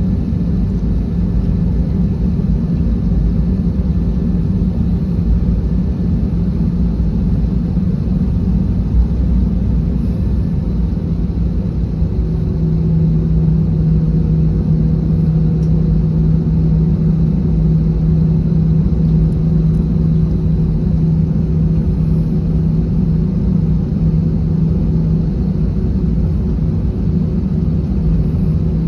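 Airbus A321 cabin noise while taxiing: a steady low rumble from the jet engines at taxi power, with a steady hum that grows stronger about twelve seconds in.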